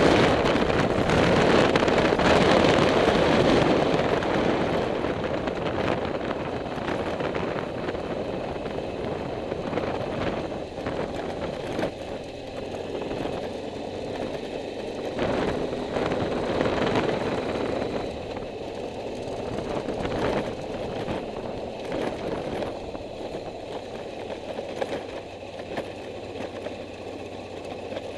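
Motorcycle engine running under way, mixed with wind and road noise; louder for the first few seconds, then lower and steadier.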